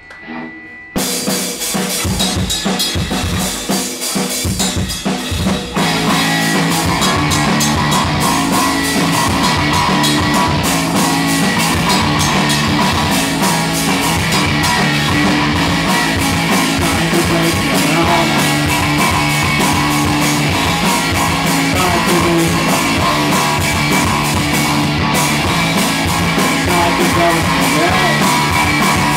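Live rock band playing a song: the drum kit starts about a second in, and the music turns louder and fuller about six seconds in as guitar and bass carry a steady, driving beat.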